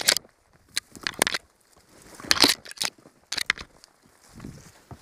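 Spruce branches and twigs crackling and brushing in irregular bursts as someone forces a way on foot through a dense, uncleared young spruce plantation, the branches scraping right past the camera.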